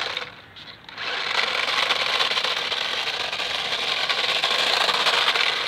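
Remote control car's small electric motor and gears buzzing steadily at speed, starting about a second in after a brief lull.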